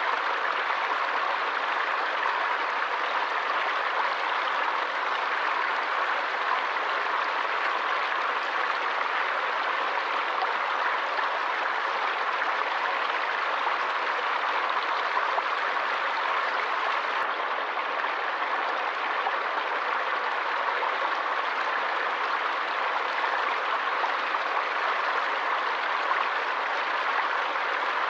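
Forest stream flowing steadily: an even, unbroken hiss of moving water at a constant level.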